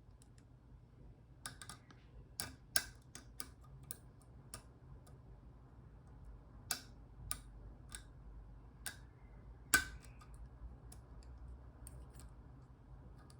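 Irregular small sharp clicks of a disc-detainer pick turning the discs inside an Abloy Classic padlock, the loudest about ten seconds in, over a faint low hum.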